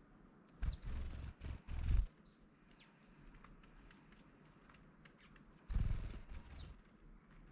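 A few short, high chirps from small garden birds, with faint ticking. Twice the chirps are swamped by a second-long burst of low rumble, first about half a second in and again near the end.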